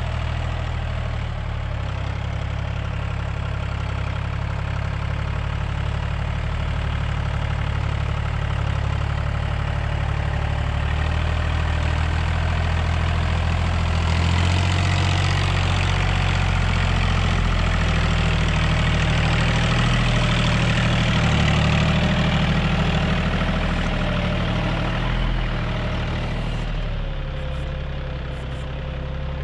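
Farm tractor engine running steadily while it pulls a laser land leveler across a tilled field. It grows louder toward the middle as it comes closer, then eases off near the end.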